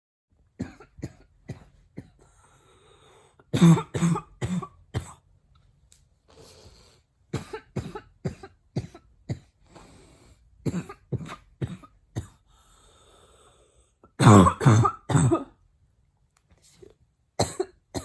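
A woman's barking cough, coughed with her mouth closed, coming in repeated fits of several short, sudden coughs each. The loudest fits come about four seconds in and again about fourteen seconds in.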